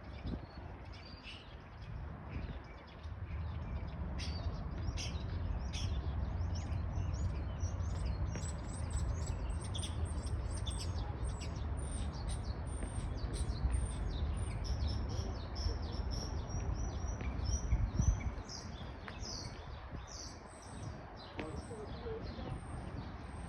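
Many small birds chirping and twittering in short, overlapping calls, over a low steady rumble that eases about eighteen seconds in.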